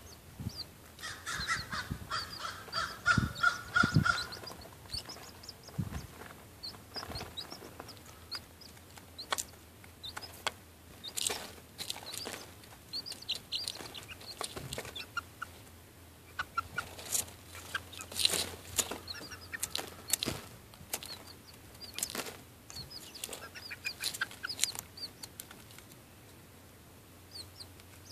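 Chickens pecking at crumble in a plastic feeder, with sharp, irregular pecking taps, a hen's low clucking call about one to four seconds in, and a chick's short high peeps throughout.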